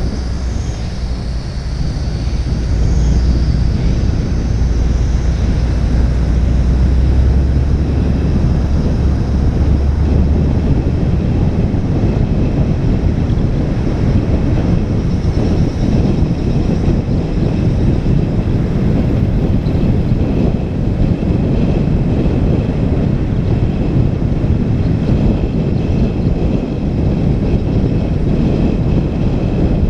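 Loud, steady wind rushing over the microphone while travelling along a road, with a deep rumble underneath for roughly the first ten seconds.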